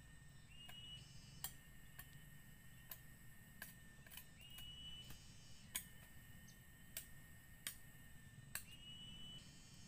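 Faint sharp clicks and knocks at irregular intervals, about one a second, from bamboo poles of a shelter frame being handled, over steady thin high tones with a short rising chirp every few seconds.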